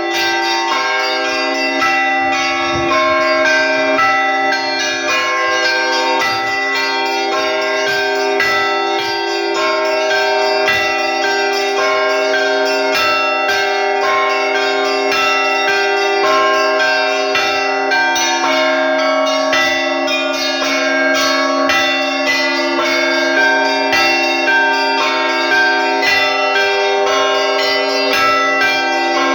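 Russian Orthodox church bell ringing (zvon): one bell-ringer striking a set of monastery tower bells, quick rhythmic patterns on the smaller bells over the lower bells ringing on and overlapping.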